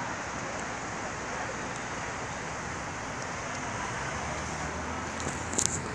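Steady hiss of city street traffic from cars on a busy downtown road, with a brief scratchy noise near the end.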